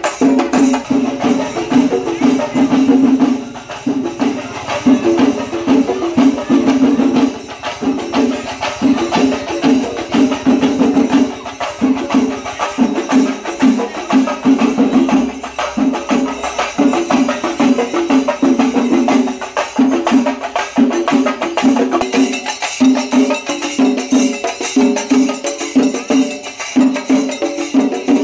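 Fast percussion music: rapid, continuous drumming with jingling, cymbal-like percussion over it.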